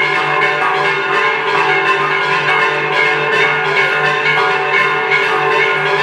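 Bells ringing continuously in a fast, repeating pattern.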